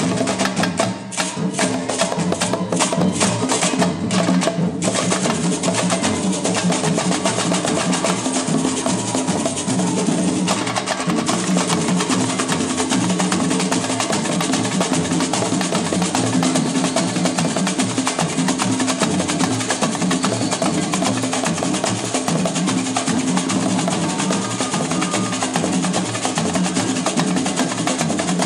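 Live samba hand drumming on two tall barrel drums, a steady fast rhythm. Sharp, evenly spaced strikes come about four a second for the first five seconds, then the drumming carries on without a break.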